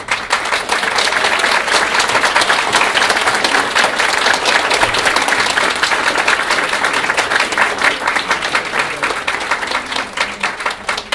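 A roomful of people applauding. It starts suddenly and tapers off near the end.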